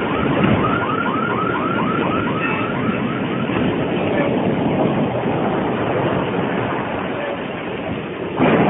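Strong wind blowing hard and steadily, with a rapid repeating chirp, about four a second, that fades out three or four seconds in. The sound suddenly gets louder just before the end.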